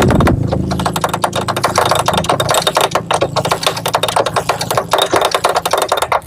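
Honda Grand's air-cooled single-cylinder four-stroke engine running with a fast, even ticking over a faint low hum. It is being run to check that the oil pump is circulating oil.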